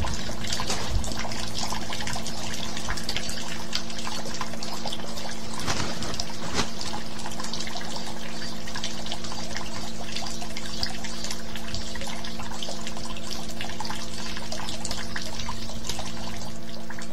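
Steady trickling, running-water-like noise with a faint low hum beneath it.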